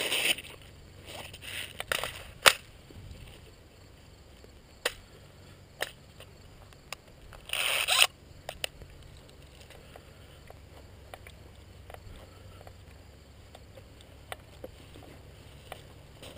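Rustling and scraping of a player's gear and footsteps over a low steady hum, broken by a few sharp isolated snaps, the loudest about two and a half seconds in, and a short noisy rustle just before the middle.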